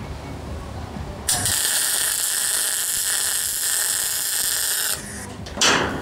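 MIG welder arc crackling steadily for about three and a half seconds, then cutting off sharply, as a steel stiffener bar is welded into the skylight's angle-iron frame.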